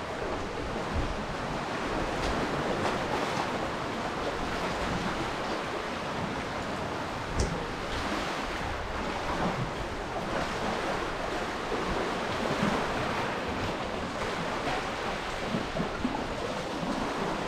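Sea surf washing onto the beach, a steady rushing noise, with wind buffeting the microphone in irregular low rumbles.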